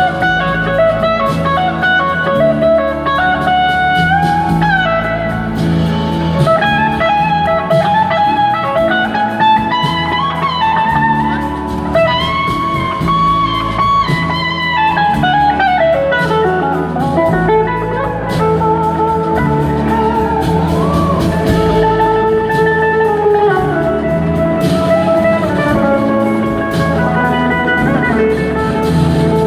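Live blues-rock band playing: an electric guitar lead with gliding, bending notes over drums and bass.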